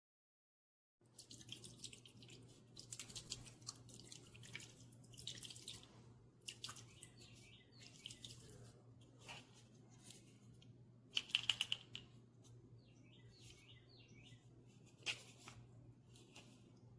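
OXO Brew 8-cup drip coffee maker brewing: water sputtering and gurgling in irregular hissing spurts over a low steady hum, starting about a second in, with a louder spurt about two-thirds of the way through.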